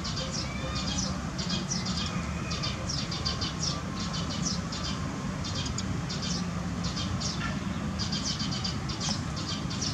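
Many short, high-pitched animal chirps in quick clusters, over a steady low rumble.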